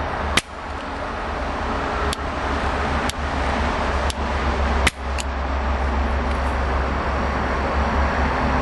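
Sharp pops of HHO (hydrogen-oxygen) gas igniting and flashing back down the hose to an in-line flashback arrestor, about six in five seconds, two of them louder than the rest. A steady low rumble runs underneath.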